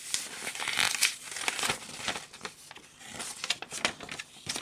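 A folded paper poster catalogue being opened out by hand: the paper rustles and crackles as it unfolds, loudest about a second in and again toward the end.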